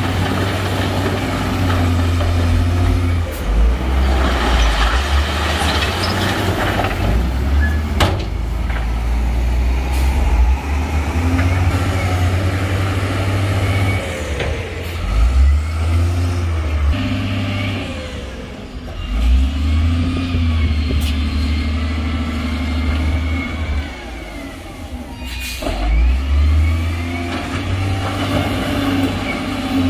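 Heavy diesel engines of dump trucks and a wheel loader running and revving, the low rumble rising and falling as the machines work. A hiss of air from the trucks' air brakes comes about four to seven seconds in, and a sharp knock follows.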